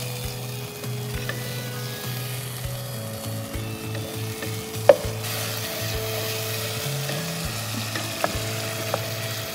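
Onion and spice masala sizzling in a pot as it is stirred and cooked down with a little water. A utensil knocks sharply against the pot once about five seconds in, with a couple of lighter taps near the end.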